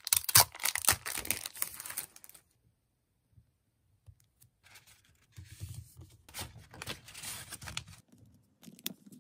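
Paper rustling and tearing for about two seconds as sheets of letter paper are pulled from their packaging, then after a pause a softer scratching of a ballpoint pen writing on paper over a wooden desk.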